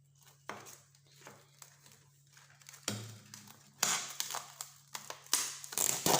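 Crinkling and rustling of a wrapper or plastic film being handled, in irregular bursts that grow louder and busier in the second half. A faint steady low hum runs underneath.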